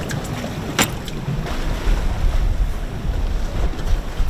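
Wind buffeting the microphone and water rushing past the hull of a boat under way at sea, with a sharp knock about a second in.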